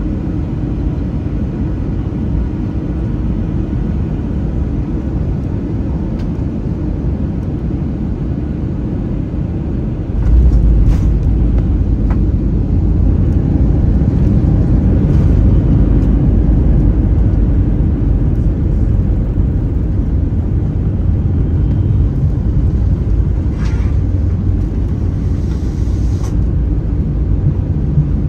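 Airbus A321 passenger cabin during landing: a steady low rumble of engines and airflow jumps abruptly about ten seconds in to a louder, deeper rumble that keeps on. A few brief rattles are heard over it.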